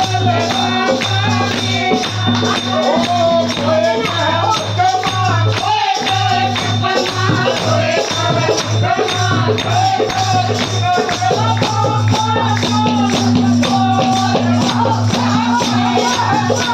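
Devotional bhajan song playing loudly: a singing voice over a repeating bass line and a fast, steady percussion beat.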